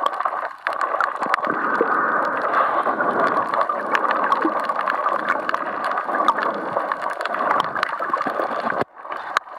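Underwater sound picked up by a camera held below the surface while snorkeling: a steady, muffled water rush with many scattered sharp clicks. It cuts out briefly about nine seconds in, then carries on.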